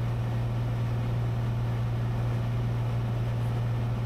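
Steady low drone of a Cessna 182 Skylane's engine and propeller in cruise flight, an even hum with a hiss over it that does not change.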